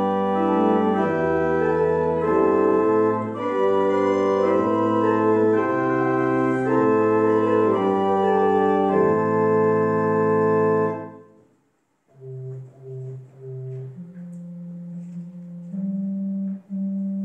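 Organ playing full, loud sustained chords that stop abruptly about eleven seconds in. After a short pause a quieter passage begins: three short repeated low notes, then soft held notes.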